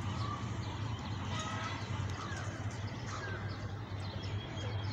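Birds chirping and calling in short, scattered notes over a steady low hum.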